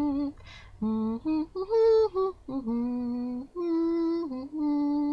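A single voice humming a wordless tune, long held notes sliding from one to the next, with a quick breath about half a second in.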